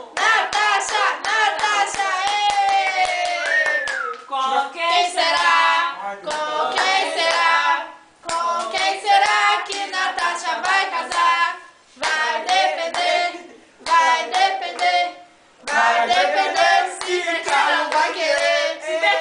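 A group of people singing a birthday song together in phrases, with steady rhythmic hand clapping.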